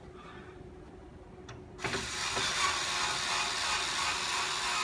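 Power drill driving a screw into a cot's mattress base. It starts suddenly about two seconds in and runs steadily.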